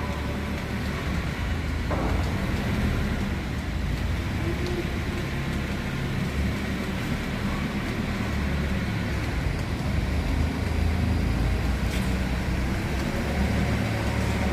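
Engines of heavy construction machinery running steadily with a low rumble, with a faint knock about two seconds in.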